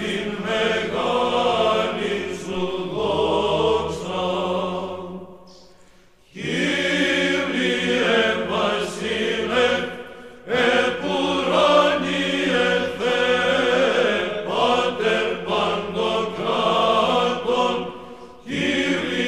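Orthodox church chant sung by a choir in long, sustained lines, with a pause in the singing about six seconds in and a short break near the end.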